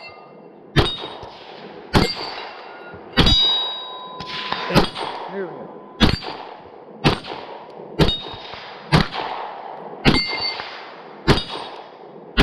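Beretta LTT 9mm pistol fired about ten times in slow, steady succession, roughly once a second, each shot followed by the clang and ring of a struck steel target.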